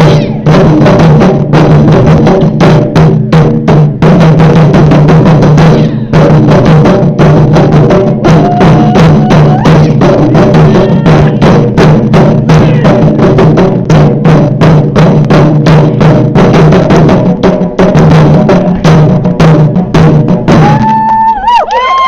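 Ensemble of Japanese taiko drums played in a loud, fast pattern of dense, driving strikes. The drumming stops about 21 seconds in, and voices shout as it ends.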